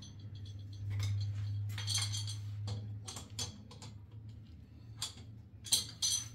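A hand tool clinking and scraping against metal plumbing fittings set in a tiled wall, a string of irregular short clicks, over a steady low hum.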